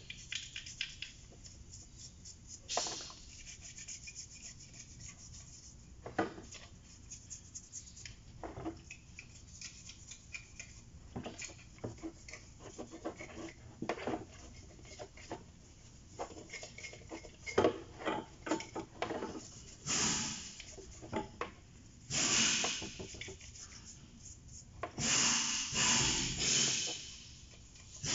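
A toothbrush scrubbing carbon-fouled EGR and intake parts in a basin of gasoline, in many short rubbing strokes. Longer, louder runs of scrubbing come near the end.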